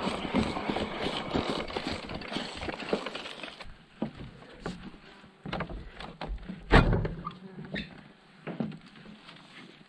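Mountain bike rattling and clattering over the rough, overgrown track bed. Then a few separate knocks and thumps, the loudest about seven seconds in.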